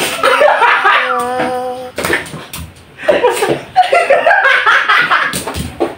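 Young men laughing hard, with a long drawn-out voiced laugh early on and a sharp smack about two seconds in and another near the end.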